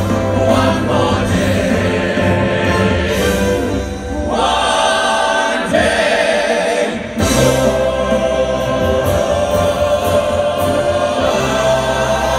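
Male vocal group singing together in harmony through a stage sound system. The low end drops away for about three seconds midway, then comes back in.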